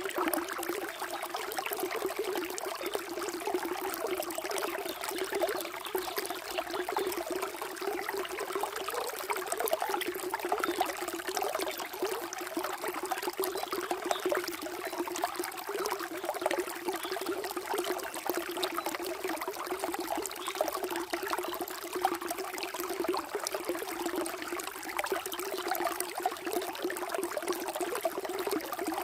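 Water flowing and trickling steadily, a continuous babbling rush without pause.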